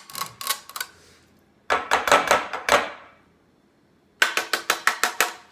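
A kitchen knife scraping and knocking against a metal box grater to clear grated Asian pear pulp into a bowl. The strokes come in three quick runs, the loudest about two seconds in and a fast run of about six a second near the end.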